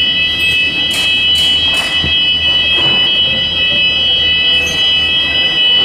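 Hyfire wireless fire alarm sounders sounding together in an alarm test: a loud, continuous high-pitched tone made of several steady pitches at once.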